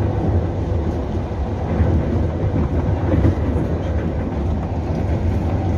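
EP2D electric multiple unit under way, heard from inside the carriage: a steady low rumble of wheels and running gear on the rails.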